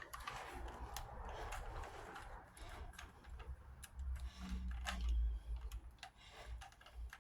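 Faint, irregular plastic clicks of a Rubik's Cube's layers being twisted, spaced a second or so apart.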